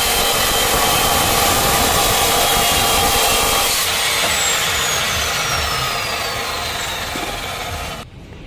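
Abrasive cut-off saw grinding through steel angle iron, a loud harsh hiss. From about four seconds in a whine slides steadily down in pitch as the sound eases, and it stops abruptly near the end.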